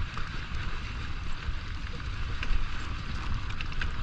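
Wind rumbling on the microphone while moving fast, over a steady hiss and scattered light clicks.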